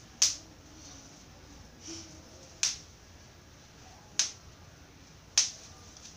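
Spring clip of a clip-on lapel microphone snapping shut as it is squeezed open and let go, four sharp clicks a second or more apart.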